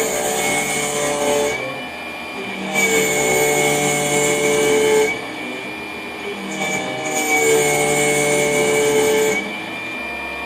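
High-speed machining on a milling machine: a steady high spindle whine, with the louder cutting noise coming in three passes of two to three seconds each and dropping back between them.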